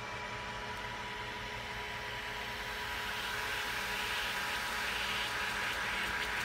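Water in a cast iron mini skillet heating toward a boil on an induction pancake coil: a hiss of forming bubbles that grows louder from about halfway through. Under it, a steady hum with a thin whine from the induction heater's power electronics.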